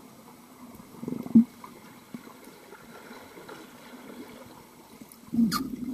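Underwater sound in a swimming pool: muffled churning water with two short bursts of bubbling and gurgling as a swimmer's strokes pass close by, the louder one near the end.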